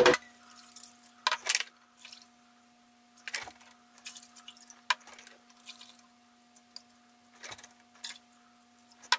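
Water poured from a plastic measuring jug into an empty saucepan, heard as a series of short splashes.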